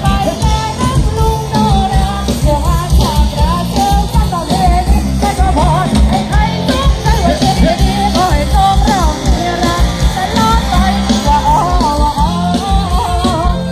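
Loud live dance music from a Thai mobile sound-truck band (rot hae), with a steady drum beat under a wavering sung melody.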